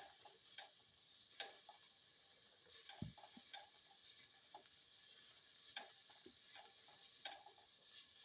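Faint, irregular clicks and scrapes of a spatula against a pan as sautéing vegetables are stirred, one or two taps a second with a duller knock about three seconds in, over a faint steady sizzle.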